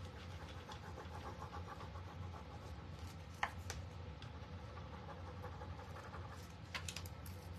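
Faint scratchy rubbing and light tapping of a small stick burnishing a rub-on transfer sheet onto a wooden cutting board, with one sharp tap about three and a half seconds in, over a low steady hum.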